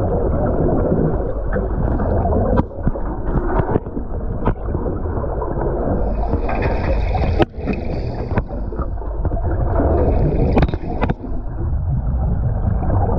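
Muffled underwater rumble and churn of rough sea water heard through a GoPro's waterproof housing, broken by sharp knocks every second or two. A few brief hissy spells of bubbles come in about halfway through and again near the end.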